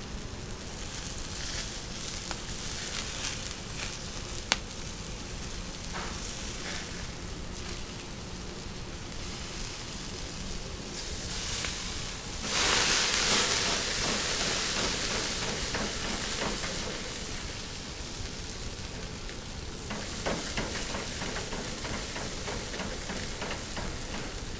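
Chicken skewers sizzling as they cook, a steady hiss with one sharp click a few seconds in. About halfway through the sizzling suddenly turns much louder and fades back over several seconds, with a smaller rise near the end.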